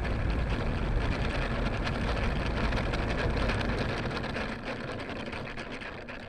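RC model airplane's engine running at low speed as the plane taxis on rough tarmac, heard from a camera mounted on the airframe. About four and a half seconds in the engine winds down and the sound fades.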